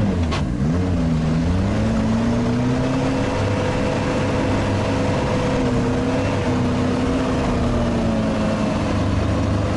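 Sherp amphibious ATV's diesel engine running under load as the vehicle drives across snow and ice. Its pitch dips briefly about half a second in, climbs back, and then holds fairly steady with small wavers.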